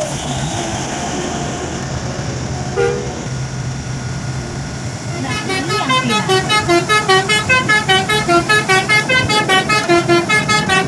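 Bus engine running with road noise and a brief horn toot about three seconds in; from about halfway a multi-tone 'telolet' bus horn plays a rapid melody of short notes, about five a second, louder than the engine.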